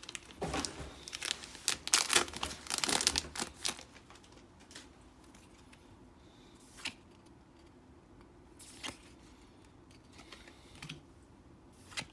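Crinkling and rustling of trading cards and their foil booster-pack wrapper being handled for about four seconds, then only a few soft isolated clicks and rustles as cards are set down.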